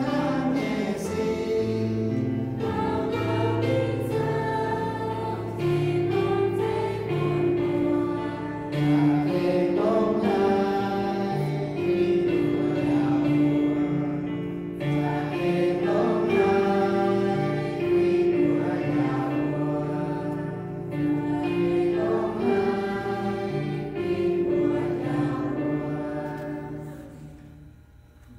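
Small mixed choir of men and women singing a worship song into microphones, accompanied by a Yamaha CP stage piano. The singing dies away near the end.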